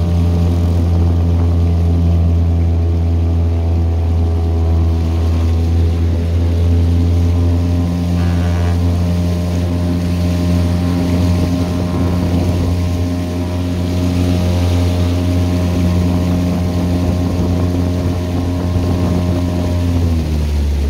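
A 4 hp two-stroke Yamaha outboard on a kayak running at high speed with a steady, even engine note over the rush of the wake. Near the end the throttle comes back and the engine pitch drops.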